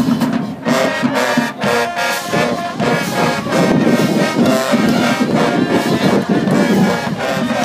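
High school marching band playing loudly, its brass section to the fore.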